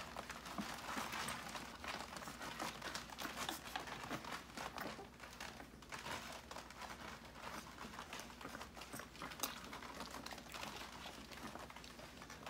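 Siberian husky puppies suckling at their mother: a faint, irregular run of small clicks and rustles as they nurse and shuffle against her fur.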